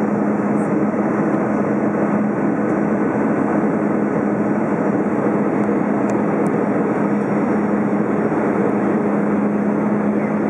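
Airbus A320 cabin noise in flight, heard from a window seat over the wing: a steady, even rush of airflow and engine noise with a constant low hum.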